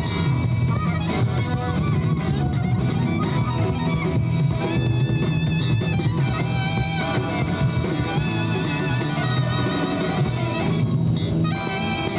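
Instrumental music: a melody line with vibrato over a dense, steady accompaniment with strong low notes.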